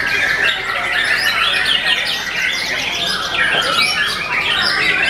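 Several caged white-rumped shamas (murai batu) singing at once: a dense, continuous tangle of overlapping whistles, trills and chirps.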